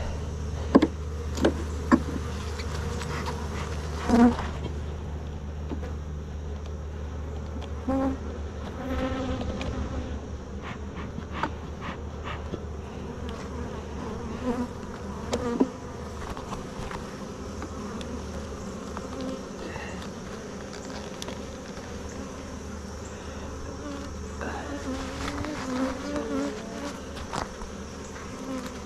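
Honeybees buzzing around an open hive, individual bees passing close with wavering drones. A few sharp knocks in the first few seconds, from handling of the hive.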